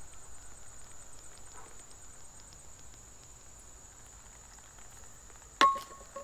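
Insect chorus: a steady high-pitched drone with a pulsing rhythm of about five or six beats a second that fades over the first few seconds. Near the end, a sharp click with a brief ringing tone as the drink bottle's cap is snapped shut.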